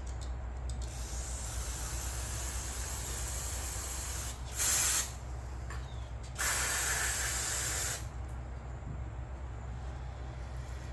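Aerosol carburetor cleaner spraying into a Generac generator's carburetor to clean out the residue: a hiss from about a second in, then two loud blasts, a short one near the middle and a longer one of about a second and a half, each cutting off sharply.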